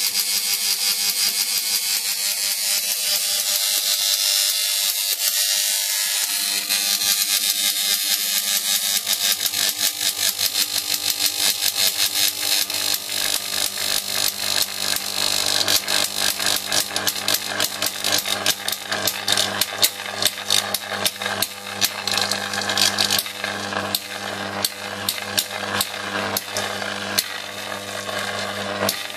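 High-voltage transformer driving a Jacob's ladder: a hissing arc over a steady electrical hum that sets in about a third of the way in. From about halfway the arc crackles in rapid, irregular snaps as it climbs the wires and breaks.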